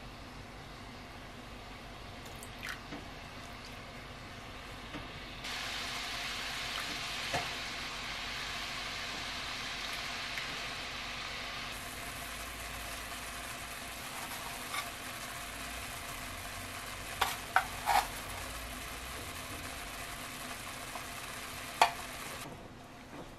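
Sauce simmering and sizzling in a nonstick frying pan on a gas burner. The sizzle starts suddenly about five seconds in, grows brighter midway and stops shortly before the end. A few sharp clicks stand out near the end, about three close together and then one more.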